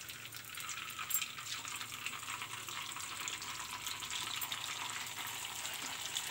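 Rice-flour dough rings sizzling with fine crackling as they deep-fry in hot oil, more rings being dropped into the pan.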